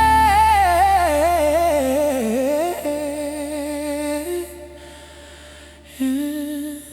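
Music: a wordless male vocal humming and riffing in a slow R&B ballad's outro. The voice winds through ornamented runs, holds a note, then drops quieter for a moment before a short hummed phrase returns near the end.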